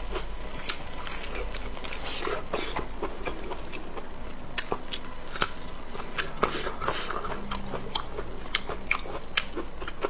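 Close-up mouth sounds of a person chewing pig intestine: wet smacks and many irregular sharp clicks of the mouth and teeth.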